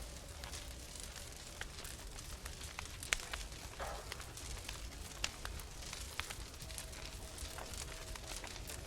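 Wood fire crackling in an open fireplace: scattered sharp snaps and pops over a low steady rumble, with a faint thin whistle coming in near the end.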